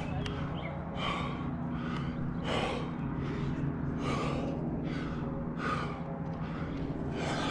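A rock climber breathing hard while climbing a strenuous route: short, forceful breaths come about once a second.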